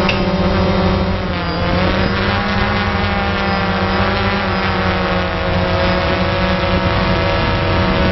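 Multirotor drone's motors and propellers buzzing right at the microphone, a dense whine of many steady tones. The pitch dips and climbs back about one to two seconds in as the drone drops lower.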